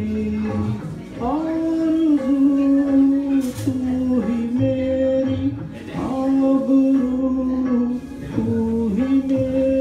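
A man sings long, held notes into a handheld microphone over a backing track, amplified through a PA speaker. The notes step up and down, each held for about a second.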